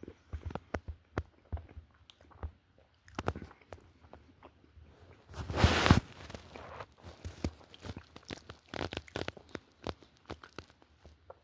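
Close-up chewing and crunching of a chocolate donut with nuts: a steady run of small crunches and mouth clicks, with one louder noisy burst lasting about half a second near the middle.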